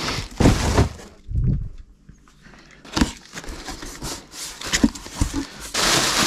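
Handling of packaging and plastic shaker cups being unpacked from a cardboard box: scattered knocks and thumps, then a rush of rustling near the end.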